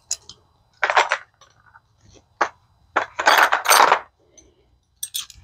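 Small metal hand tools clinking and rattling against each other as they are picked up and sorted. The sound comes as a string of short clinks and rattles, the longest a little past the middle.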